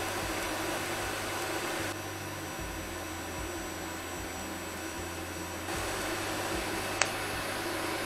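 TIG welding arc at 65 amps on 3 mm steel flat bar, with filler rod fed into an edge joint: a steady hiss over a low hum. It drops a little in level about two seconds in and comes back up near six seconds, with one sharp click about seven seconds in.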